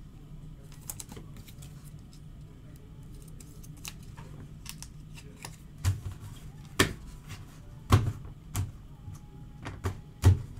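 Irregular clicks and knocks as trading cards and plastic card holders are handled, stacked and set down on a table. It is faint and ticking at first, with about six sharper knocks in the second half.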